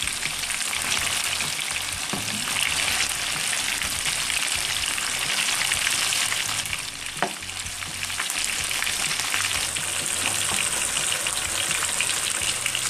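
Masala-coated fish pieces frying in hot oil in a frying pan over medium heat, a steady crackling sizzle, with a slotted metal spoon moving the pieces. One sharp tick about seven seconds in.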